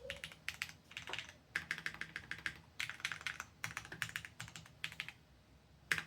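Typing on a Gok 7V mechanical keyboard with Gateron Cream Soda switches, built plateless: quick runs of keystrokes that thin out about five seconds in, with one louder keystroke near the end.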